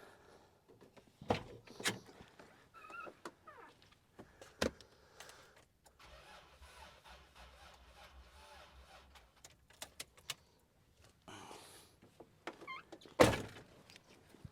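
A few sharp knocks and thuds from someone working at the 2003 Isuzu Rodeo's cab, the loudest near the end. A faint low hum runs through the middle.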